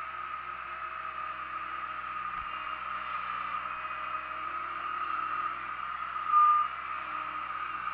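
Bobcat skid-steer loader's diesel engine running steadily, heard from the operator's seat in the open cage cab. A single short high-pitched beep about six seconds in is the loudest moment.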